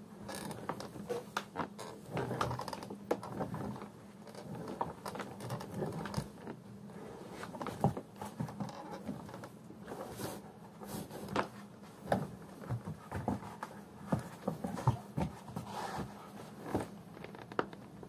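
Irregular clicks, knocks and creaks of silicone office-chair casters being handled, with plastic parts clacking together and rubbing.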